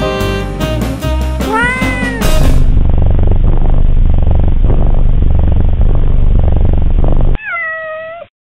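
Jazz outro music with saxophone ends about two seconds in. A loud, low rumble follows for about five seconds, then a single cat meow that rises and falls in pitch and cuts off just before the end.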